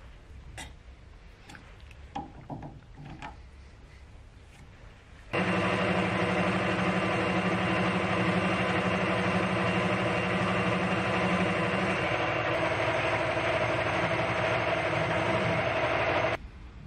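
Metal lathe running under power, its drive and gears humming and whining steadily as the tool faces the end of a spinning bar. It cuts in and out abruptly, and the tone shifts about halfway through. Before it come a few faint light clicks.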